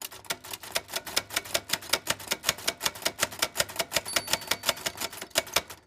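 Rapid, even clicking, about eight clicks a second.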